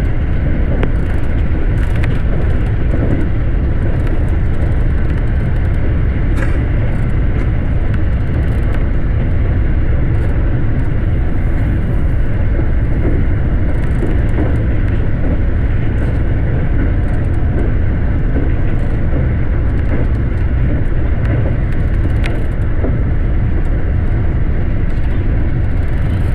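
Electric commuter train running at speed: a loud, steady rumble of wheels and motors on the track.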